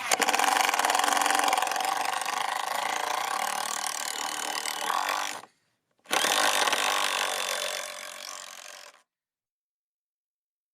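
Power saw cutting wood in two passes, the first about five seconds long and the second about three, after a short break.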